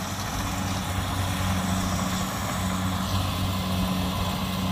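Kubota DC70 rice combine harvester's diesel engine running steadily as the machine cuts standing rice, a steady low hum.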